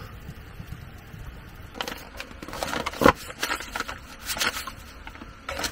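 Crinkling and rustling of a packet of powdered cream-stew mix and its cardboard box being handled, in a run of short crackles and scrapes from about two seconds in, with one sharper knock about three seconds in.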